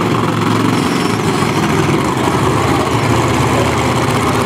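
Monster truck engine running steadily as the truck rolls slowly.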